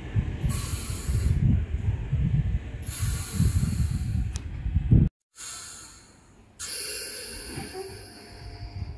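Compressed air hissing in several bursts from a Greater Anglia electric multiple unit standing at the platform, over a low uneven rumble. The sound drops out briefly about five seconds in.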